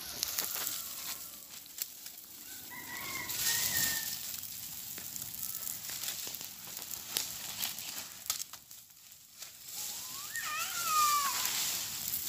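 A rooster crowing: a short, fainter call about three seconds in and a full crow, rising then falling, near the end, which is the loudest sound. Beneath it, dry leaves and palm fronds burning with a light crackle.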